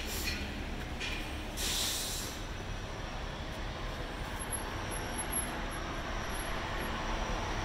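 Steady city traffic noise: a low rumble with an even hiss above it, and a brief louder hiss about two seconds in.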